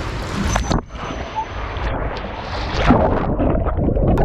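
Pool water splashing and gurgling over a camera held at the water surface, the sound turning muffled as the camera dips under.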